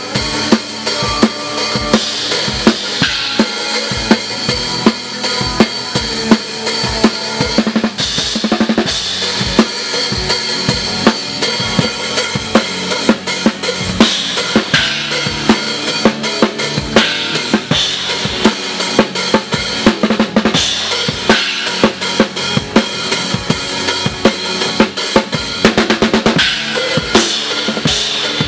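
Live rock band playing, led by a drum kit: kick drum, snare and cymbals keep a steady beat under keyboard and electric guitars.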